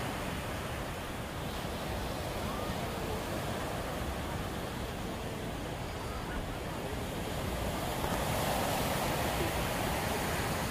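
Surf breaking and washing up a sandy beach, with wind on the microphone. The wash swells louder about eight seconds in.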